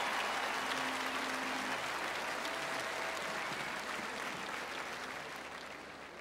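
Applause from a vast open-air crowd, slowly dying down.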